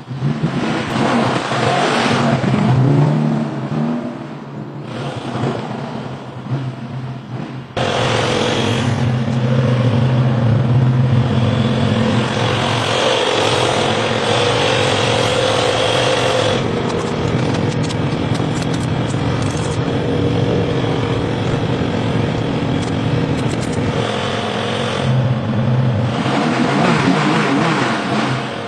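Moskvich 401's four-cylinder side-valve engine running, its sound changing abruptly every several seconds across cut-together shots.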